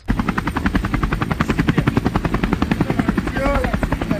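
A steady, fast, rhythmic mechanical beating, about a dozen pulses a second, like a rotor or motor running. A brief higher-pitched sound comes about three and a half seconds in.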